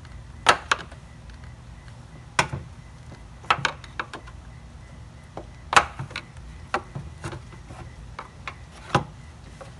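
Screwdriver prying at the plastic retaining clip of a 2003 Ford Focus coolant reservoir: a string of irregular sharp clicks and knocks of metal on plastic, about a dozen, with the loudest about half a second in, near the middle and near the end.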